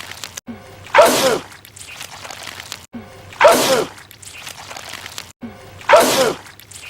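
A man's loud sneeze, the same sneeze repeated on a loop three times, about two and a half seconds apart, each with a brief cut before it starts again.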